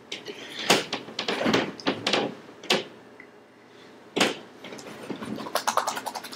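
A Boston terrier pouncing and stepping about on a couch cushion, going at lemon slices: a few sharp thumps and scuffles, then a quick run of clicks near the end.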